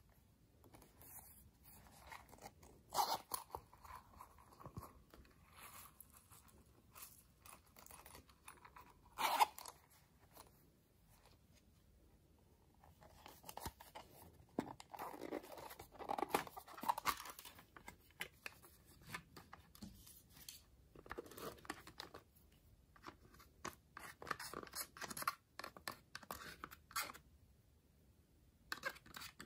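Hard plastic makeup compacts being handled and clicked open, with two sharp clicks about three and nine seconds in. Later come stretches of scratching and scraping as powder makeup is scraped out with a small tool.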